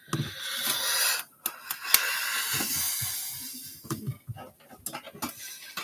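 A person breathing out hard twice, close to the microphone: two long hissing exhales, the second the longer. A few light knocks and rustles come between and after them.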